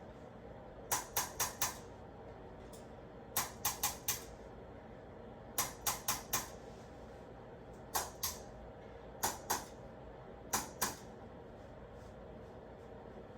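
A handheld chiropractic adjusting instrument clicking: six quick groups of two to four sharp clicks, each group a short run of percussive thrusts delivered to the patient's spine.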